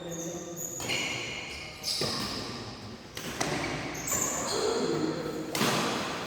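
Badminton play: several sharp racket strokes on the shuttlecock, with court shoes squeaking briefly on the floor between them.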